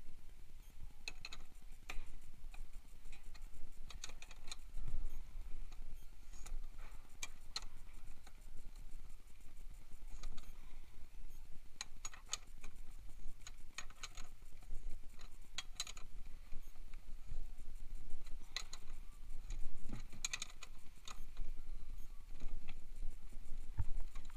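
Steel combination wrench clinking and clicking against nuts at the bottom of a mini dirt bike's front fork as they are turned, in irregular sharp metallic ticks.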